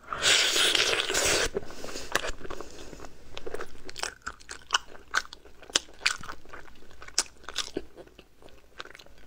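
Close-miked eating of braised chicken legs: a loud burst of crunching or tearing in the first second and a half, then steady chewing with many short, sharp clicks.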